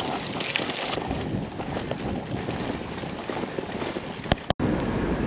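Wind buffeting the microphone of a handheld camera on a moving bicycle, with rolling noise and small ticks from the bike. About four and a half seconds in, the sound briefly cuts out, and after that the wind is louder and deeper.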